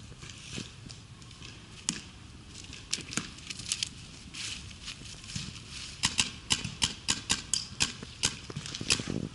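Paintball markers firing: a few scattered single shots, then from about six seconds in a fast string of sharp pops, about four a second.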